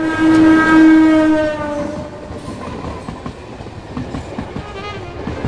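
Train horn blaring for about two seconds, its pitch sagging slightly as it fades, followed by the rattling clatter of a train running on the rails.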